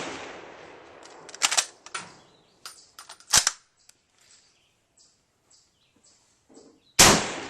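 Carcano 91/41 rifle in 6.5x52mm: the echo of a shot dies away, then the bolt is worked with sharp metallic clacks about one and a half and three and a half seconds in. A second shot fires about seven seconds in and echoes.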